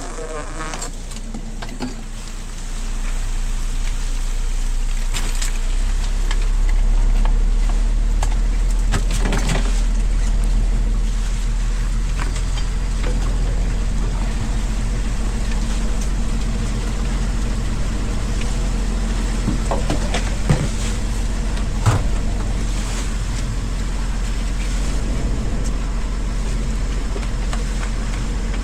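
A boat's engine running steadily as a low rumble, growing louder about two and a half seconds in, with a few scattered knocks.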